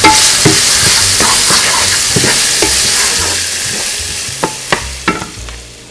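Chopped scallions sizzling in olive oil and butter in a skillet while a wooden spatula stirs them, scraping and tapping against the pan several times. The sizzle thins out toward the end.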